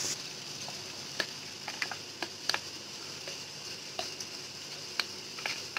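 A spoon stirring cornstarch and water into a slurry in a plastic bowl: soft scraping with a scattering of light, irregular clicks and taps against the bowl.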